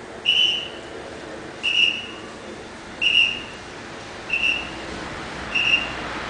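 A traffic guide's whistle blown in five short blasts, about one every second and a half, each a single steady high tone. It is directing traffic while a city bus makes a U-turn on the road.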